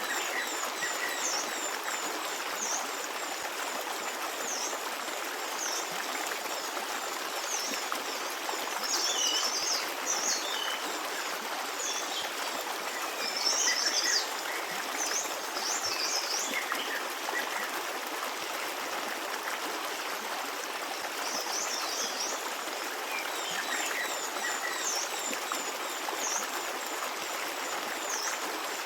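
Shallow stream running and babbling steadily, with small birds chirping in quick high calls above it, busiest about a third and halfway in and again near the end.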